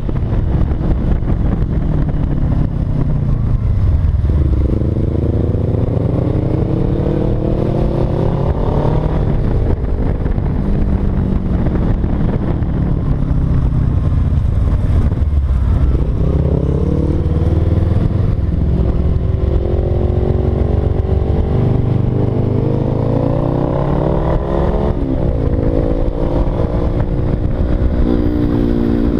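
Motorcycle engine heard from the rider's seat while under way, its pitch climbing and dropping back several times as the throttle is opened and closed or gears are changed, over a heavy rumble of wind on the microphone.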